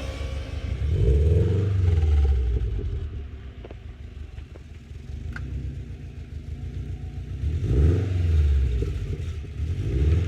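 2013 Subaru WRX's turbocharged flat-four heard through a J2 cat-back exhaust, revving in loud swells that rise and fall in pitch about a second in and again near the end, quieter in between. The owner says the car has an exhaust leak.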